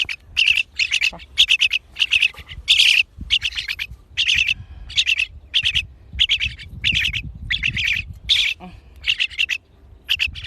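Pet crested myna (八哥) giving a long run of short chattering calls, about two a second.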